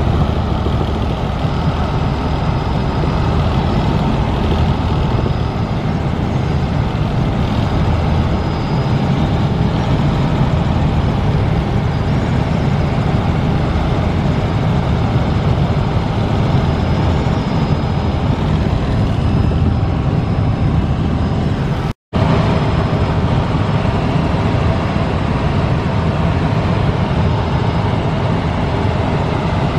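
Helicopter in flight heard from inside the cabin: a loud, steady drone, heaviest in the low end. It cuts out for an instant about two-thirds of the way through.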